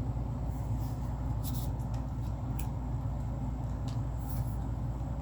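Trading cards being slid into plastic card sleeves: a few brief, faint swishes over a steady low hum in the room.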